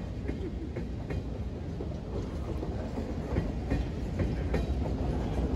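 Passenger railroad cars rolling past at close range: a steady low rumble of wheels on rail with irregular clicks, getting a little louder near the end.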